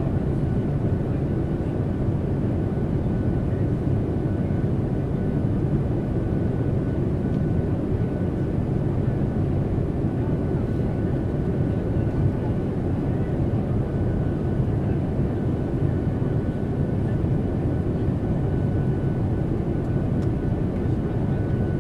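Airliner cabin noise: a steady, even, low rush of engines and airflow with a faint thin high tone running through it.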